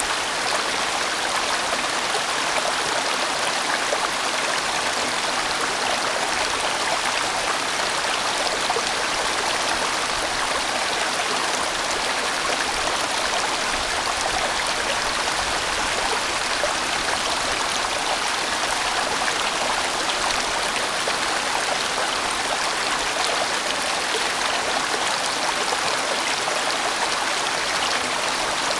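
Large, winding valley stream flowing: a steady, even wash of water sound with no breaks or distinct splashes.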